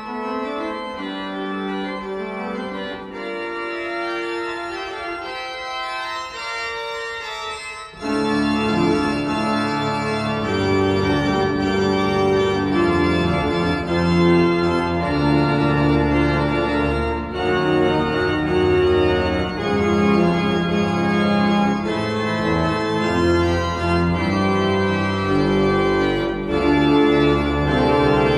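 Klais pipe organ (four manuals, 57 stops) playing slow, sustained chords. About eight seconds in, deep bass notes come in and the organ grows louder, and it stays at the fuller sound.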